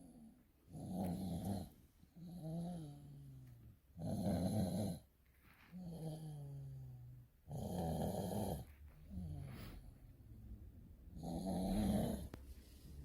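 A sleeping dog snoring in a steady rhythm: a loud raspy snore about every three and a half seconds, four in all, each followed by a softer breath that falls in pitch.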